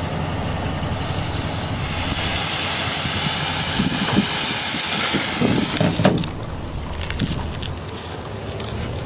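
Road traffic: a vehicle passing, its tyre and engine noise swelling over a few seconds and then fading, with a few light knocks near the middle.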